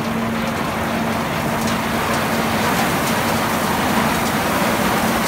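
A load of olives pouring into a mill's receiving hopper, a steady rushing patter of many small fruits landing, with a constant machine hum underneath.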